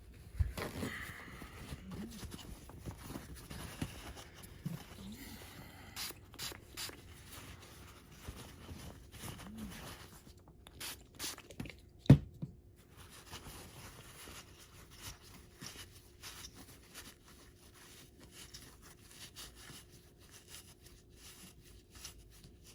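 Scattered handling noises of a foam RC tire being worked in a shop towel with traction compound, with light rubbing, a few sharp clicks and one loud knock about twelve seconds in.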